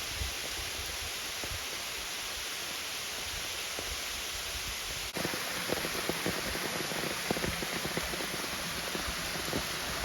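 Steady hiss of rain and rushing water. About halfway through it changes abruptly, and scattered light taps sound over the hiss from then on.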